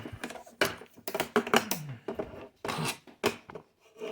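Small tools and objects being handled on a workbench: a string of irregular clicks, knocks and light clattering.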